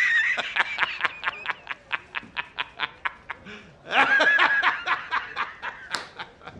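A man laughing hard: a quick run of 'ha's, about five a second, that fades away, then a second loud bout of laughter about four seconds in.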